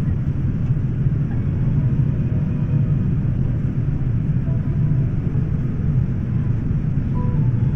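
Steady low rumble of a Boeing 787 airliner in cruise flight, heard inside the cabin: the even drone of engines and airflow.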